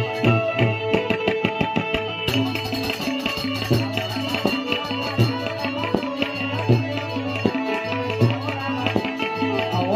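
Live traditional accompaniment music: a hand drum keeping a steady rhythm under held melodic tones.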